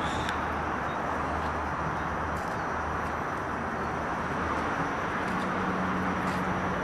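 Steady outdoor city ambience: a constant rumble and hiss of distant road traffic, with a low steady hum joining about five seconds in.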